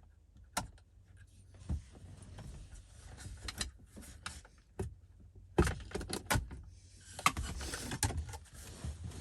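Irregular clicks, knocks and rattling of plastic and metal parts with rustling in between, as the car's radio head unit is worked out of the dashboard by hand. The loudest knocks come about five and a half to six and a half seconds in, with a denser stretch of rattling near the end.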